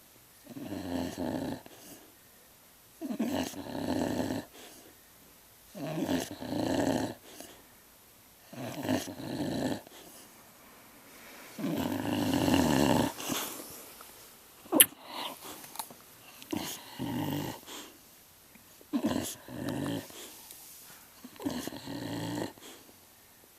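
An animal snoring and grunting in its sleep, with rough breaths of about a second each, repeating every two to three seconds. A single sharp click about fifteen seconds in.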